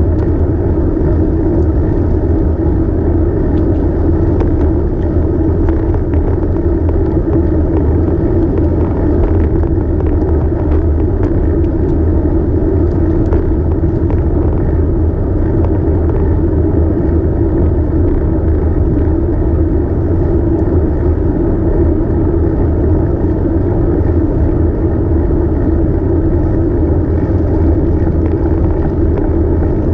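Steady low rumble of wind and road noise on a bicycle-mounted camera while riding along a bike lane.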